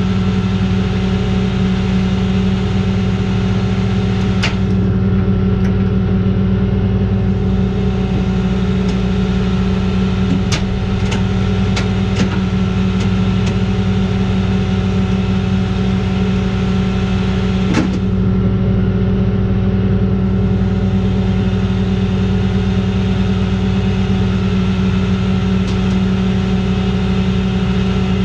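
Flatbed tow truck running steadily with its hydraulics and winch working, with a constant low hum and a few sharp metallic clicks, as a van in neutral is pulled onto the bed.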